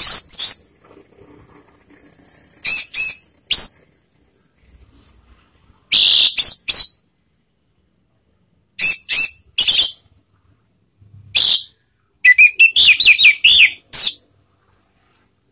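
Orange-headed thrush singing in short, loud, high-pitched phrases separated by pauses, about six phrases in all; the longest, near the end, is a quick run of rising-and-falling notes.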